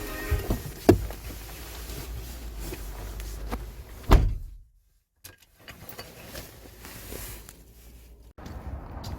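Low rumble of a car with a few clicks and knocks, then a car door slams shut about four seconds in. After the slam the rumble is gone and it stays much quieter.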